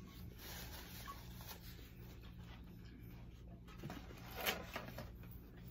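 Quiet eating sounds of fried chicken fingers being chewed, with one short, sharp crackle about four and a half seconds in, over a low steady hum.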